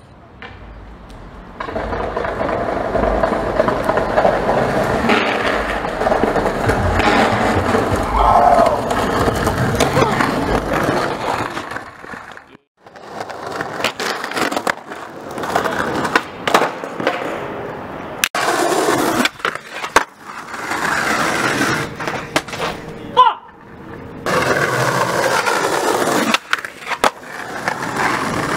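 Skateboard wheels rolling over concrete and pavement, with sharp knocks of the board popping, slapping and landing on tricks. The sound breaks off and changes abruptly several times as one take cuts to the next.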